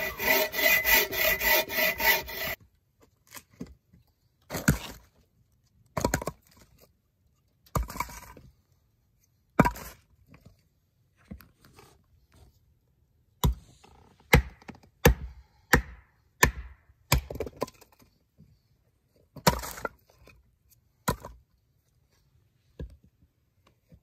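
A hand saw cutting through a log in quick strokes, the blade ringing, for the first couple of seconds. Then about a dozen sharp, irregularly spaced chops of an axe splitting firewood on a chopping block.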